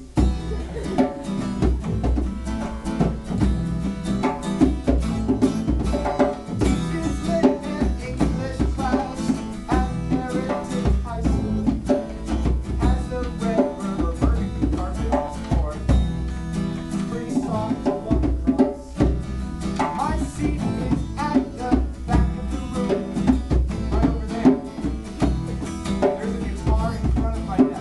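Acoustic jam of a strummed acoustic guitar, a djembe hand drum beaten in a steady rhythm, and a plucked upright double bass.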